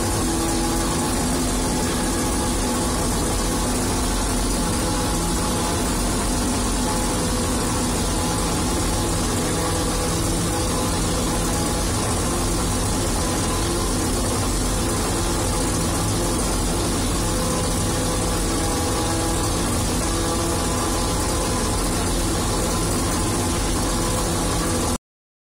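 Fortschritt E-281 forage harvester's diesel engine and cutting machinery running steadily under load while harvesting maize, heard from inside the cab. The sound cuts off abruptly just before the end.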